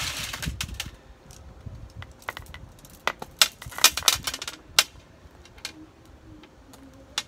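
Rustling at the start, then irregular sharp clicks and clinks, clustered a little after three and four seconds in, as gloved hands handle small stones and plastic pots while repotting succulents.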